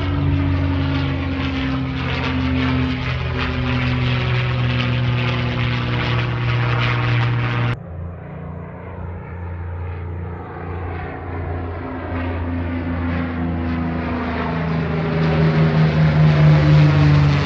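Propeller-driven warbird's piston engines droning overhead in a flyover. The drone breaks off abruptly about eight seconds in, comes back quieter, then grows louder again with a pulsing beat near the end.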